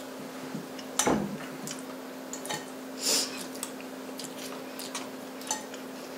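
Forks and spoons clicking lightly against plates and bowls during a meal, with a single thump about a second in and a short breathy noise about three seconds in. A steady low hum runs underneath.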